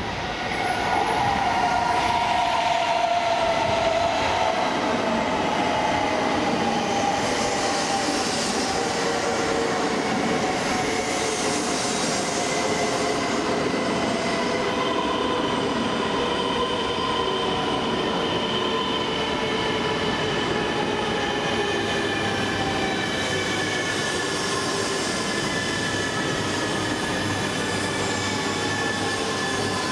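A coupled E2 series and E3 series Shinkansen train running past close by as it slows into the station, with steady rolling noise. Several whining tones fall slowly in pitch as the train brakes.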